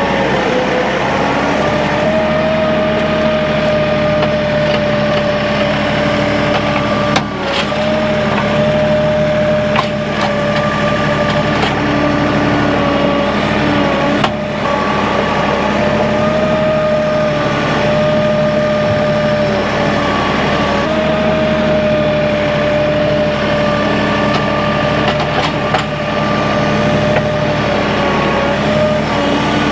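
A machine's engine running steadily at an even speed with a steady high whine, and a few short knocks of wood.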